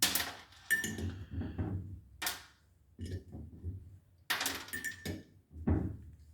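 Small metal parts and hand tools clinking and knocking on a Subaru cylinder head during teardown as the valve-spring shims are picked out: a handful of irregular knocks, a couple with a short metallic ring.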